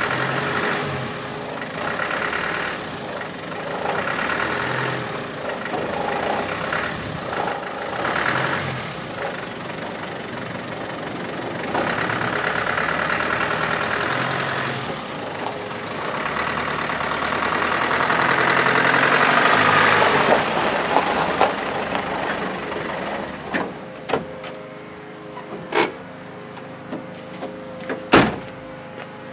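Land Rover Defender 110's 200Tdi four-cylinder turbodiesel engine running as the vehicle is driven on a gravel road, its sound swelling and fading, loudest in the middle stretch. In the last several seconds it settles to a quieter idle with a few sharp knocks.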